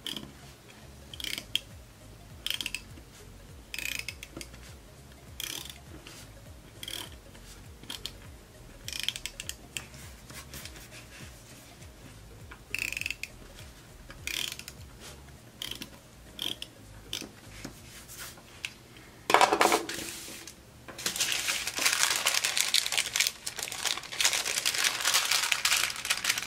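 A handheld decorative tape runner pressed and drawn across planner paper again and again, its gears giving a short ratcheting rasp about every second and a half. About 19 seconds in comes a loud rustle, then steady crinkling of thin tissue-like paper being handled.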